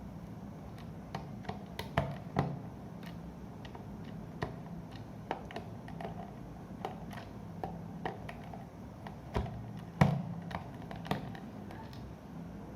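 Small screwdriver with a Phillips bit backing a screw out of a plastic multimeter case: irregular light clicks and taps, with a few sharper knocks about two seconds in and again about ten seconds in.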